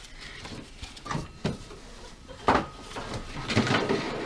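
Old serpentine belt being slipped off the engine's pulleys by hand, with a few sharp knocks and clatters of handling, the loudest about halfway through.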